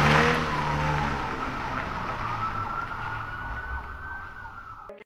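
Ford Fusion car engine pulling away and fading into the distance, its hum dying off over the first few seconds. A faint, thin high tone rises slowly in pitch in the middle, and the sound cuts off suddenly just before the end.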